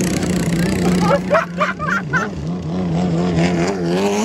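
Turbocharged diesel engine of a longtail boat running loud and steady, its pitch wavering up and down in the second half.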